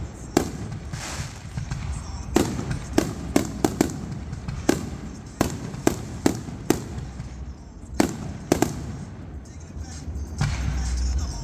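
Fireworks going off: a dozen or so sharp bangs and pops at irregular intervals, some in quick clusters.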